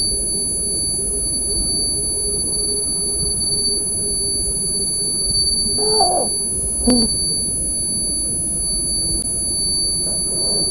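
A continuous high-pitched electronic beep, a steady tone held without a break over a low rumble. About six seconds in a man's voice cries out briefly, and a short click follows.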